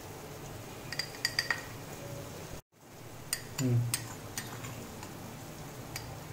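Steel spoon clinking against a ridged glass bowl and a steel kadai as ground spices are scooped and tipped in: a quick run of three clinks about a second in, then more scattered single clinks. The sound cuts out for a moment near the middle.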